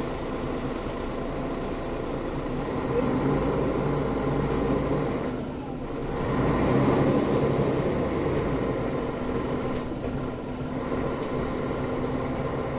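Mercedes-Benz O530G Citaro G articulated bus's diesel engine pulling the bus along, heard from inside the passenger cabin. It grows louder a few seconds in, drops back briefly near the middle, then picks up again.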